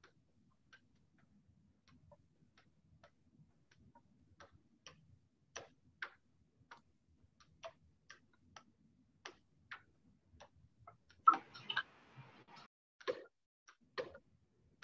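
Faint ticking of a quiz countdown timer, short clicks at about two a second that grow louder, with a brief rustle about two-thirds of the way through.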